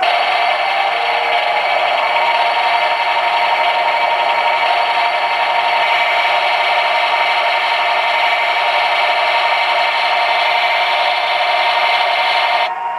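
O scale model freight cars rolling on curved 3-rail track, their metal wheels giving a steady scraping clatter with a faint squeal. The sound is louder through most of the stretch and drops abruptly near the end.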